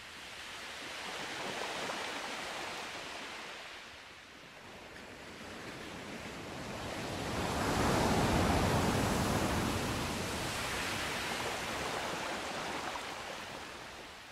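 Ocean waves washing in and drawing back in two slow swells, the second and louder one about eight seconds in.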